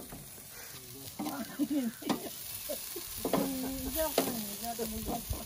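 Pork chops sizzling on the grate of a charcoal grill, a steady hiss with a few sharp clicks of metal tongs. Snatches of a voice come through twice.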